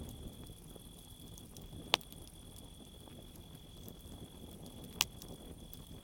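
Split-log campfire burning, with two sharp pops of crackling wood, about two seconds in and again about five seconds in. A cricket trills steadily in the background.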